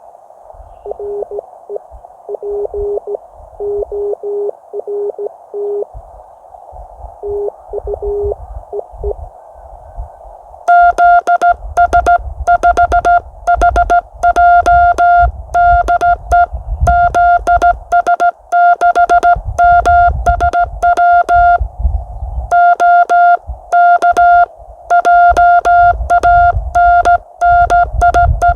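Morse code (CW) on a ham radio transceiver. For the first ten seconds a faint keyed signal beeps dots and dashes under a band of receiver hiss. Then a loud, buzzy keyed sidetone starts sending Morse, with low thuds along with the keying.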